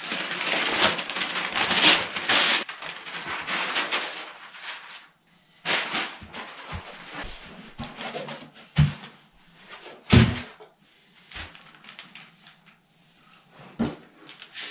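Newspaper sheets rustling and crinkling as they are spread out over a floor, for about the first five seconds. This is followed by a few scattered knocks and thumps, the loudest about ten seconds in.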